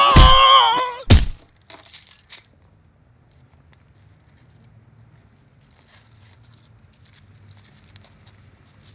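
A man's high-pitched scream, cut off about a second in by a loud, sharp bang. A few smaller clicks follow, then faint scattered clicks over a low hum.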